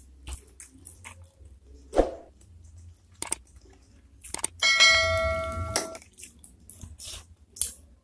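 Close-miked eating sounds of beef meatball soup: soft chewing and mouth clicks with a metal spoon and fork working in a ceramic bowl. A sharp click about two seconds in; about four and a half seconds in, metal cutlery strikes the bowl and it rings for about a second.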